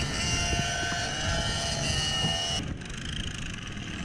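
Mini bike engines running during a ride, with a steady, slightly wavering engine whine over a rough low rumble of wind and road noise. The higher whine cuts off abruptly about two and a half seconds in.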